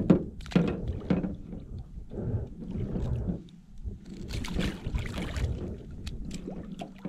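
Knocks and scuffs from handling a fish in an aluminium jon boat: a few sharp knocks in the first second and a half, then a stretch of splashing and rustling, over a steady low hum.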